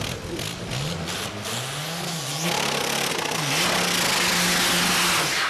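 Car engine revving up and down several times, its pitch rising and dipping, over a loud rushing noise that grows stronger about halfway through.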